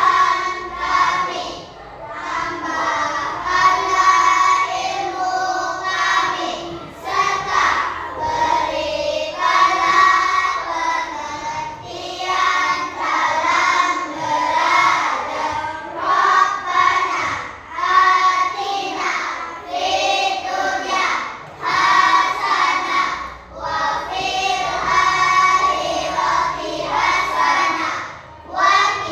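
Children singing a song, phrase after phrase with short breaths between.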